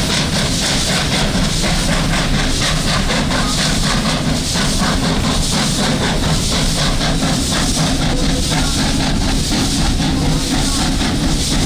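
Steady rumble and rattle of a moving steam-hauled passenger train, heard from on board.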